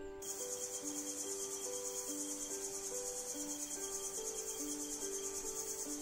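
An insect's high, rapidly pulsing trill, the rainforest's chirring, over soft background music of slow, held notes.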